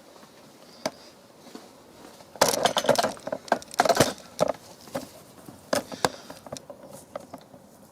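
Metal parts and tools clinking and rattling as they are handled: a single click, then a busy clatter about two and a half seconds in, then scattered clicks.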